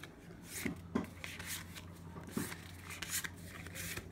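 Large game cards handled by hand, sliding against one another in several short rustles and scrapes, over a low steady hum.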